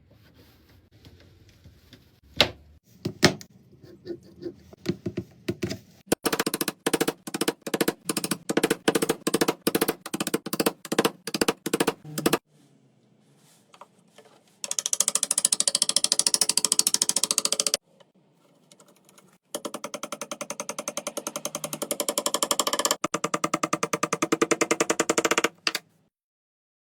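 A few separate sharp knocks, then three long runs of rapid, evenly repeated sharp taps, several a second, with short pauses between the runs; the later runs are denser.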